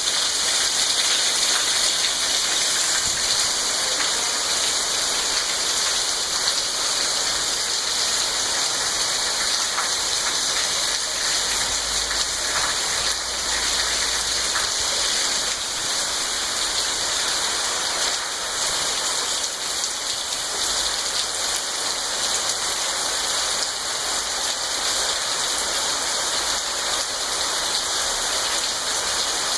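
Rain falling steadily, an even hiss that keeps up without a break.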